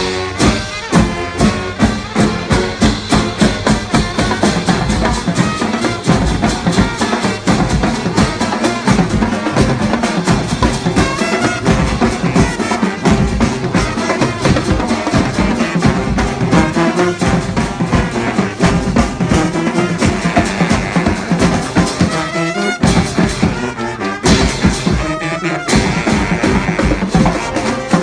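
Marching band playing: brass horns over a steady drum beat of about two hits a second.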